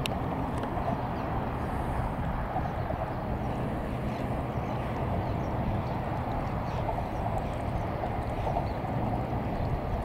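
Fishing boat's diesel engine running steadily with an even, rapid knock as the boat motors slowly across calm water.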